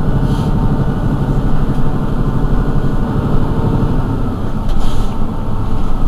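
Mercedes-Benz Citaro G articulated bus idling at a standstill: a steady low engine rumble. Two brief sharp noises cut in, about a third of a second in and again about five seconds in.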